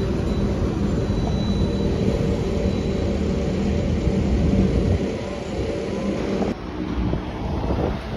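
Red London double-decker buses pulling away and driving through a road junction: a steady low engine drone with traffic noise around it, changing abruptly about six and a half seconds in as another bus passes.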